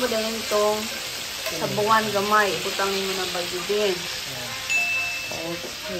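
Pork sizzling as it fries in oil in a frying pan, with a voice singing over it.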